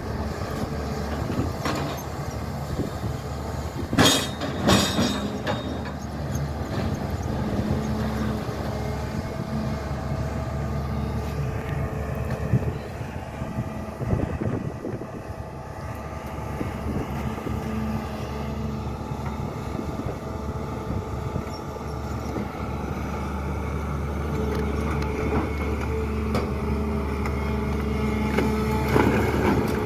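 SANY crawler excavator's diesel engine running steadily under load as it digs. Two sharp clanks of rock and bucket come about four seconds in, and the machine grows busier and louder near the end.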